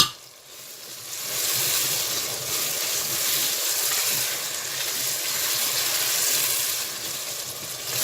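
Boiled potatoes frying with spinach in hot oil in a pan, a steady sizzle that swells up about a second in and holds. A sharp knock comes right at the start.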